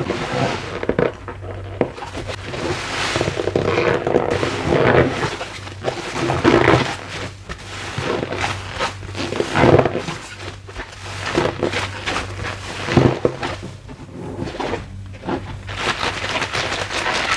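A sponge squeezed repeatedly by hand, squeaking in irregular swells every one to three seconds.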